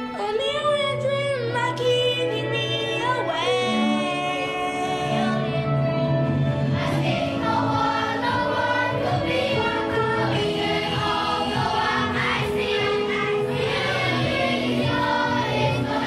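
A children's choir singing a song, with steady low instrumental accompaniment underneath.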